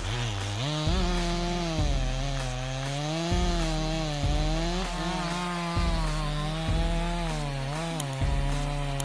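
Chainsaw engine running at full throttle while cutting wood, its pitch sagging under load and picking up again several times. A music track with a steady low beat plays underneath.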